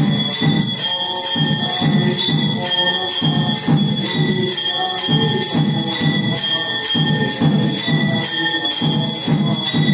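Temple bells rung continuously during the aarti, a steady high ringing, over a low beat that repeats about twice a second.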